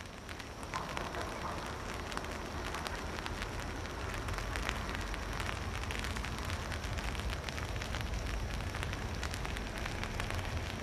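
Rain pattering, a dense crackle of drops close by, over a steady low rumble.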